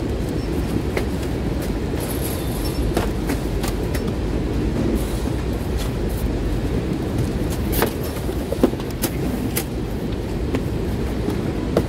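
Steady low rumble of warehouse machinery, with scattered clicks and rustles as a cardboard box and plastic mailer are handled and packing tape is laid on. There is a sharper knock about two thirds of the way through.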